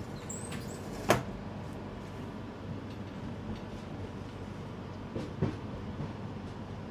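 Running noise heard from inside a moving express-train passenger coach: a steady rumble with light rattles. A sharp clack comes about a second in, and a couple of smaller knocks come near the end.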